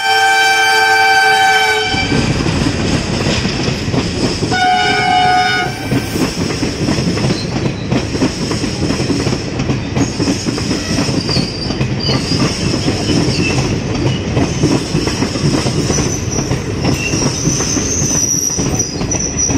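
WDM-3A diesel locomotive sounding its horn as it passes at speed: a two-second blast, then a shorter one a few seconds later, over the rumble of the train. Then the coaches run past with a steady clatter of wheels and a high-pitched wheel screech from about ten seconds in.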